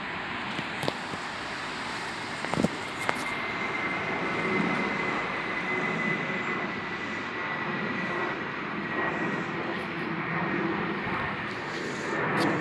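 British Airways Airbus A320 jet airliner passing overhead: a steady jet rumble with a thin high whine that falls slightly in pitch. A few short knocks sound in the first three seconds.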